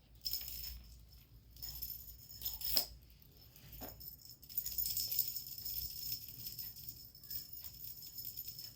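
Faint, intermittent jingling with a few light clicks.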